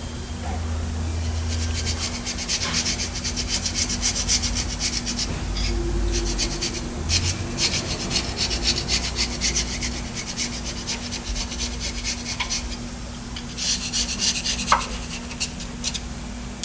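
Quick, repeated scraping strokes in several bursts over a steady low hum: hand work on engine parts during a teardown.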